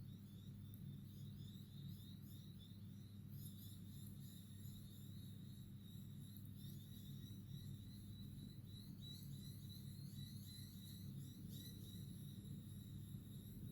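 Near silence: a steady low hum with faint, repeated high-pitched chirping in the background, which grows busier a few seconds in.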